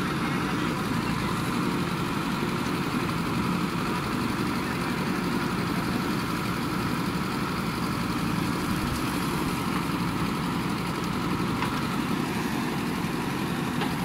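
JCB 3DX backhoe loader's diesel engine running steadily while the backhoe arm digs.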